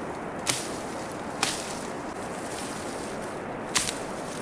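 Three sharp chops of a hand blade striking tree branches as leafy branches are cut: two about a second apart, then a third near the end.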